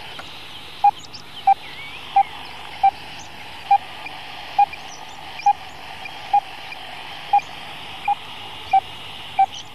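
Wildlife radio-telemetry receiver beeping over steady static hiss: the pulsed signal of a wolf's radio collar, about a dozen short, same-pitched beeps a little more than one a second, as the receiver is tuned to it.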